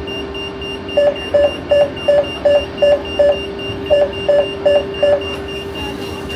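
Door-closing warning beeps on a Renfe 450 series double-decker commuter train, signalling that the doors are about to shut: seven short beeps about three a second, a brief pause, then four more. Fainter high pips and a steady hum sound underneath.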